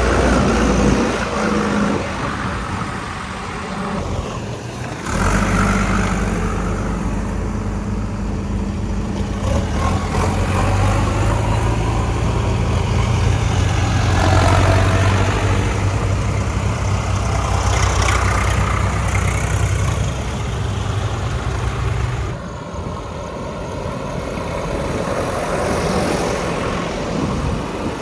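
Heavy diesel machinery running at a worksite: a steady low engine note that picks up about five seconds in and drops away about 22 seconds in, over constant mechanical noise.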